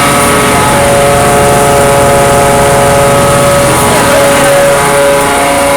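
Engine-driven pressure washer rig running steadily at full throttle, with a steady whine over the hiss of the high-pressure water spray.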